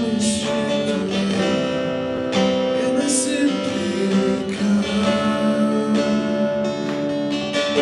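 Acoustic guitar strumming chords, the accompaniment for a congregational worship song, with the chords changing every couple of seconds.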